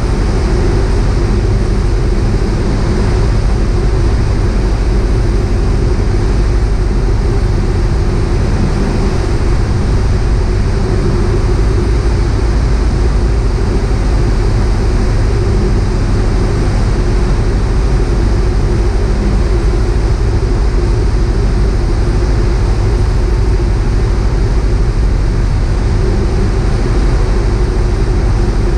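Piper PA-38 Tomahawk's four-cylinder Lycoming O-235 engine and propeller droning steadily in flight, heard from inside the cockpit.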